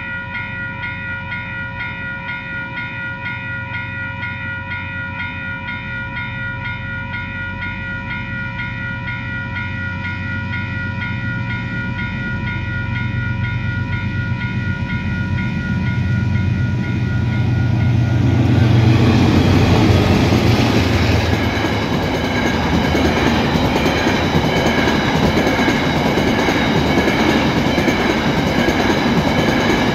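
Level crossing alarm bell ringing in rapid, even strokes while General Electric DXC-class diesel-electric locomotives rumble closer, the rumble growing steadily. About two-thirds of the way through the locomotives reach the crossing and a loud roar of engines and steel wheels on the rails swells up over the bell, staying loud as they pass.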